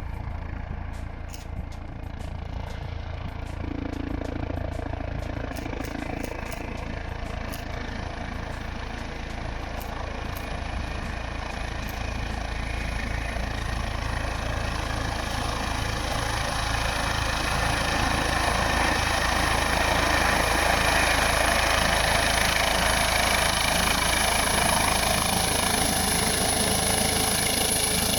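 A motor vehicle's engine running steadily, growing gradually louder, with a few light clicks in the first seconds.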